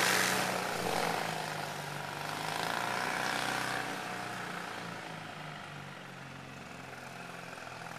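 Kitfox light aircraft's engine droning and fading steadily as the plane climbs away, over a steady low hum.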